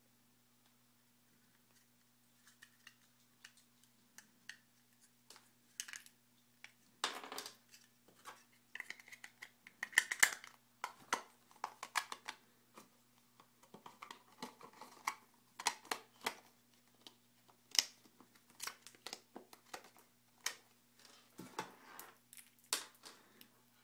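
Handling noise from an Apple EarPods plastic case and its packaging: irregular clicks, scrapes and rustles of plastic as the earbuds and their cord are pulled out of the moulded tray. Sparse at first, more frequent from about five seconds in.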